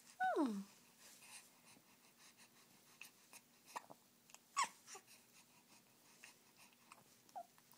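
Hiccups: a sharp hiccup about halfway through, with fainter ones before and near the end. A short whine falling in pitch comes right at the start.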